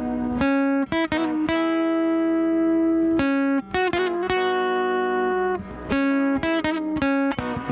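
Background music: a slow melody of plucked string notes, each struck sharply and left to ring.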